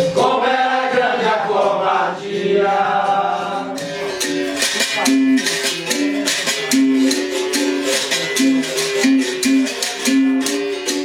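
Capoeira music: a voice sings over the instruments for the first few seconds, then the berimbau plays a repeating pattern of short twanging notes against a fast shaking caxixi rattle.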